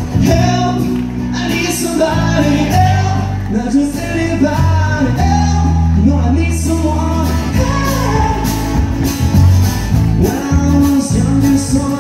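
Live country band playing: a male singer singing with his acoustic guitar, backed by electric bass.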